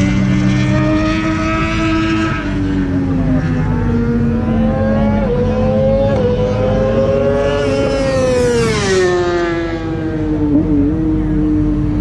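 Several car engines running at speed, their notes rising and falling with throttle and gear changes. About eight to nine seconds in, one car passes close by and its note drops steeply as it goes past.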